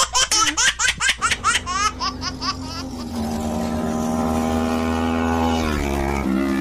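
Laughter for the first second, then a motorcycle engine, a CFMoto 400NK, running steadily as the bike rides past, its pitch dropping slightly as it goes by near the end.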